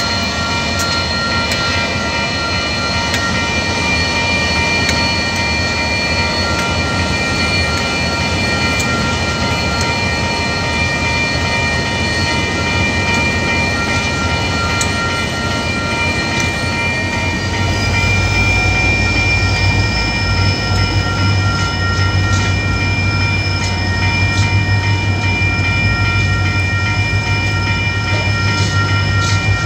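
A diesel freight train rolls through a level crossing, first its locomotives and then container wagons, with clicks from the wheels over the rails. The rumble grows heavier about halfway through. Over it the crossing's warning bells ring steadily.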